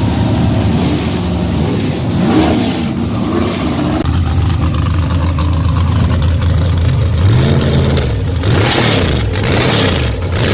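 Car engine running and being revved a few times, its pitch climbing and dropping, with the quickest rises and falls near the end.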